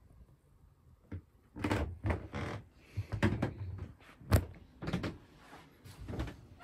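Wooden pull-out berth base being slid out and handled: a series of wooden scrapes and knocks, the sharpest knock about two-thirds of the way through.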